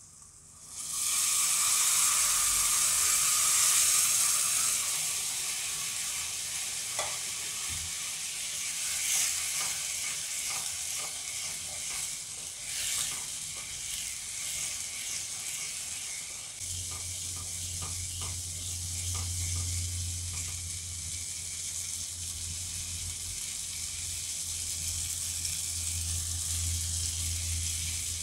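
Hot milk hitting roasted semolina in a hot kadai, sizzling loudly from about a second in, then settling to a steady hiss. A wooden spatula scrapes through the mix while it is stirred, and a low steady hum joins about two-thirds of the way through.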